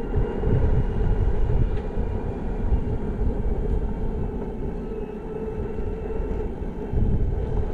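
Electric skateboard riding at speed: wind buffets the helmet-mounted action-camera microphone with a heavy, uneven rumble over a steady mid-pitched hum from the board's motor and wheels.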